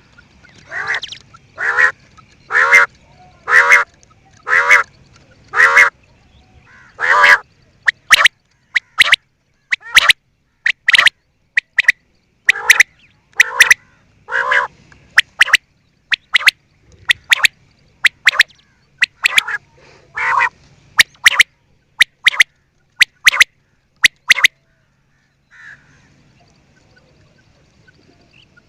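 Quail calling over and over: rasping calls about once a second at first, then a quicker run of short, sharp notes that stops about four seconds before the end.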